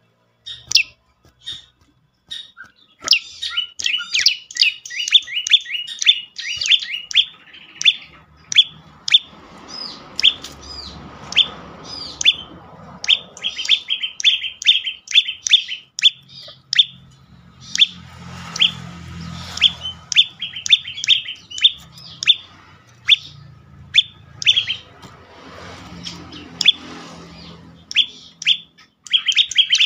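Olive-backed tailorbird (prenjak lumut) calling: rapid runs of sharp, downward-sweeping chirps, several a second, broken by short pauses, over a faint low rumble that comes and goes.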